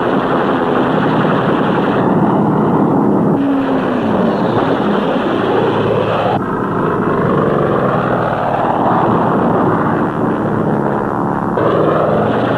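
Piston-engine propeller aircraft running loud as they fly low past, the pitch falling as one goes by about four seconds in. The sound changes abruptly several times where the footage is cut.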